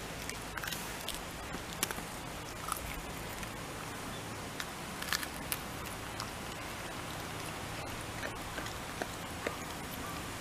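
Shiba Inu chewing leafy greens, with irregular crisp crunches and clicks of its teeth on the leaves over a steady background hiss.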